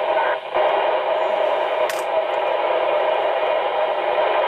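Two-way radio receiver hissing steadily through its speaker: static on an open channel with no clear voice coming through. A sharp click about two seconds in.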